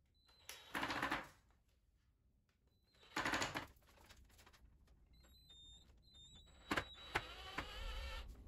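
Cordless drill pressed hard down into a wooden loom frame, running in three short bursts. The last burst is longer, and the motor's pitch climbs through it. The drill is going in with difficulty and needs the user's full body weight on it.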